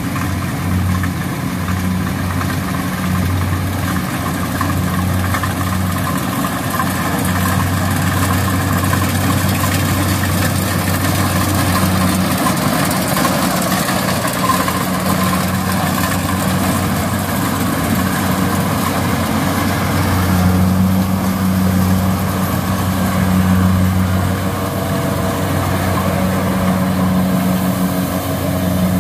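Kubota DC70 combine harvester's diesel engine and threshing machinery running steadily at working speed.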